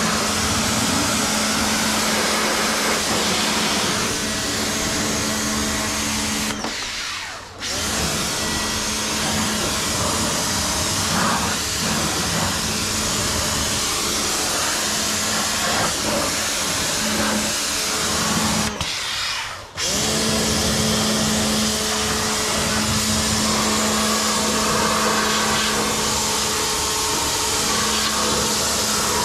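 Ingco 1400W electric pressure washer running, a steady motor hum under the hiss of its water jet spraying a car's grille and wheel. The sound drops out briefly twice.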